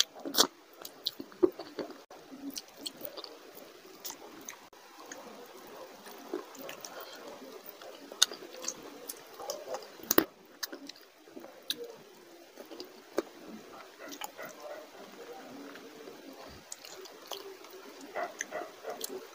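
A man chewing and biting a chicken leg piece in curry, eaten by hand: wet, continuous chewing with many scattered sharp clicks, one sharper click about ten seconds in.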